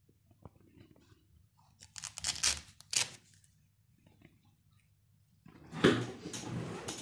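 Pleated paper blind crinkling and rustling as it is handled and folded up, in short crackly bursts about two seconds in, then a louder, longer stretch of crinkling near the end.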